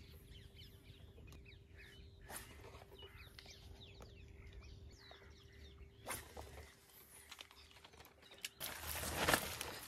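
Faint bird chirping, many short quick calls, over a low steady hum. About nine seconds in, a louder rustling noise starts.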